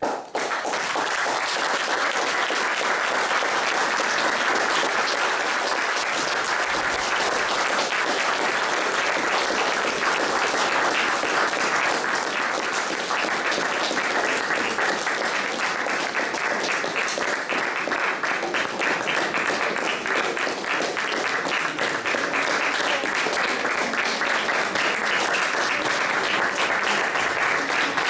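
Audience applauding, breaking out all at once and then holding steady.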